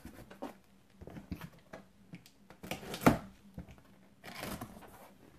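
Cardboard box and packaging being opened and handled: scattered rustles and scrapes, a single sharp knock about three seconds in, and a longer scraping sound near the end.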